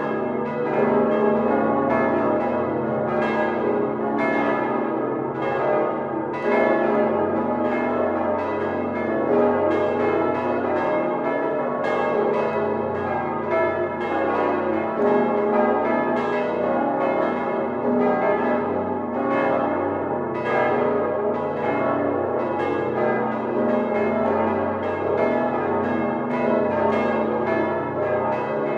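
Full peal of the Dom Tower's large swinging church bells, all rung together, heard close up in the bell chamber. Many bells strike out of step with one another, and each tone rings on into the next, making one continuous, dense clangour.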